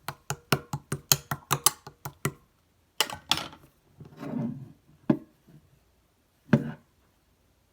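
Melon pudding slime being played with by hand: a quick run of sharp popping clicks, about five a second, then after a pause a few slower, softer squishes and single pops.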